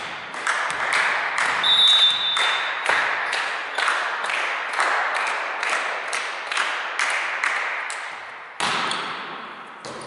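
Rhythmic clapping in unison, about three claps a second, echoing around a sports hall. A volleyball referee's whistle sounds briefly about two seconds in to allow the serve, and a sharper hit near the end is the serve.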